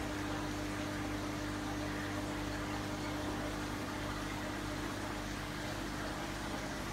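Aquarium pump equipment running: a steady hum with a constant low tone and an even hiss of bubbling water.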